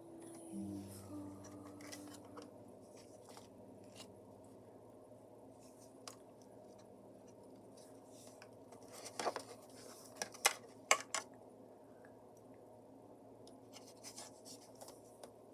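Faint scratchy handling noises and a few sharp clicks or snips, clustered about nine to eleven seconds in, over a faint steady hum.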